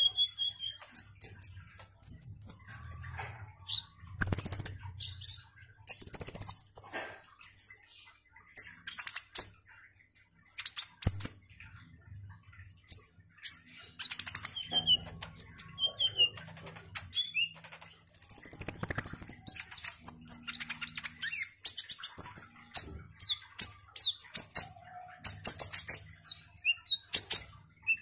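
Caged male kolibri ninja sunbird singing lively: a dense run of short, high, thin chirps and twittering phrases, with one longer high trill about 18 seconds in. Low wing flutters come through now and then.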